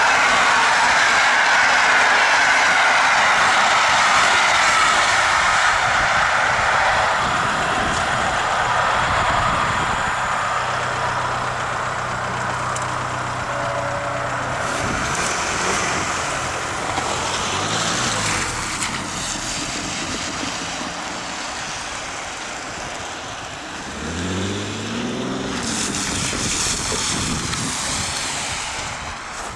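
Passenger train coaches rushing past at speed, their wheel-on-rail noise fading away as the train recedes. Later a road vehicle's engine hums steadily, then rises in pitch near the end as it accelerates away over the level crossing.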